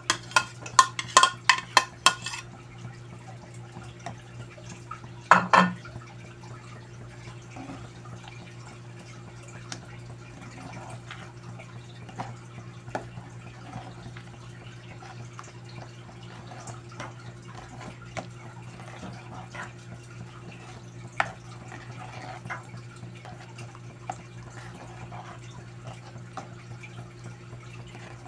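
Thick chocolate rice porridge simmering in a pot, with small bubbles popping and plopping. A metal ladle clatters against the pot several times at the start and knocks once more about five seconds in. A steady low hum runs underneath.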